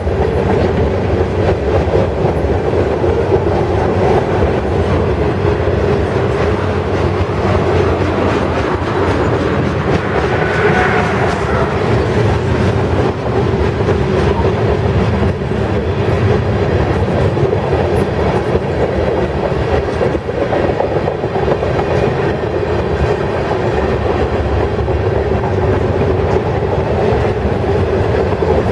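Freight cars (boxcars and tank cars) rolling past: a steady rumble and clatter of steel wheels on the rails, with a brief higher-pitched squeal about ten seconds in.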